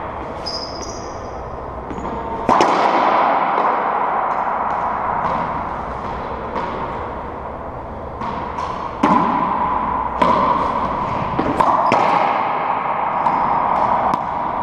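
Racquetball rally in an enclosed court: a series of sharp cracks as the ball is struck by racquets and hits the walls, each one ringing and echoing around the court. The loudest hits come about two and a half seconds in and in a cluster from about nine seconds on, with sneakers squeaking briefly on the hardwood floor.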